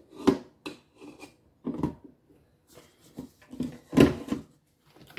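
Stainless steel bowl and flat beater being fitted onto a Vitek stand mixer: a series of short metal and plastic clicks, knocks and scrapes as the bowl is seated and the beater lowered into place, the loudest knock about four seconds in.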